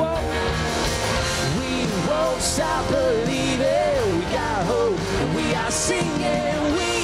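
A live worship band plays a rock-style song with electric guitars and keyboard, with voices singing the melody.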